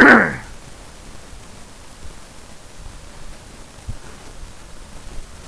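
Steady hiss from the recording microphone's background noise. At the very start comes a brief, loud sound that slides sharply down in pitch, and there is a faint click about four seconds in.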